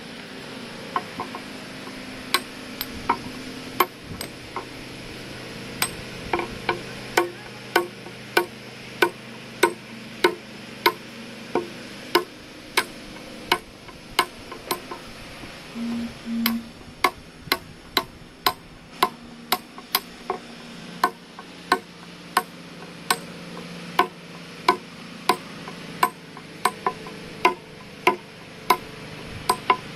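Hammer tapping a chisel along the edge of a Kota stone slab, hand-cutting it: sharp, evenly spaced strikes, about one and a half to two a second. Two short tones sound briefly about halfway through.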